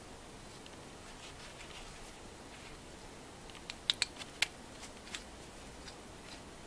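Quiet room with a quick cluster of three or four sharp clicks and taps about four seconds in, then a few fainter ticks: small metal and plastic parts of an electronic EGR valve being handled as it is taken apart.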